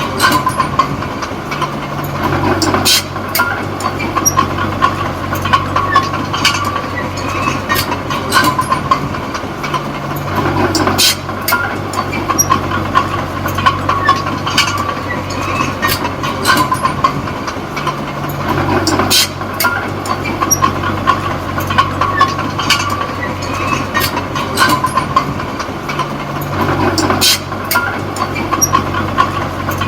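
Small crawler bulldozer (D20P) working: its diesel engine is running with the steel tracks clanking and clicking. The engine note changes in a repeating cycle about every eight seconds, as in back-and-forth pushing passes.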